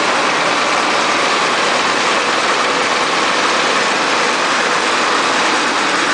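1987 Jaguar's freshly rebuilt engine running steadily at idle on its first run after the rebuild, heard close up over the open engine bay.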